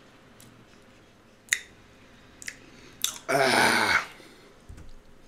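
A few faint mouth clicks from the last chewing, then a man's loud open-mouthed "aah" with his tongue out, lasting under a second, about three seconds in.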